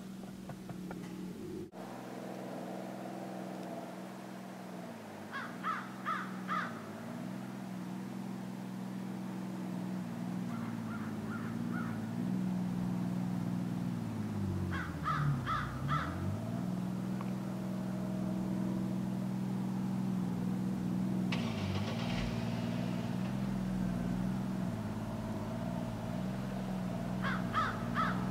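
A boat engine runs steadily while it works through ice, its pitch dipping and recovering several times as it takes load. Crows caw in runs of three or four calls every few seconds.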